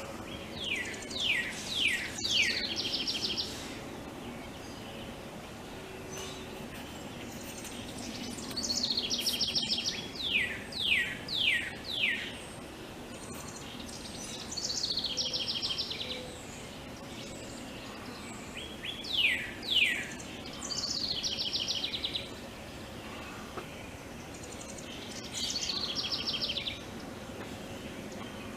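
Songbirds singing in bursts every few seconds: short runs of three or four quick, falling whistled notes and rapid high trills, over a faint steady background noise.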